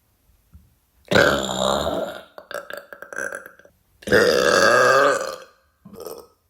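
A woman burping loudly twice, each burp about a second long and gurgly, with a run of small crackling pulses between them and a short extra burp near the end.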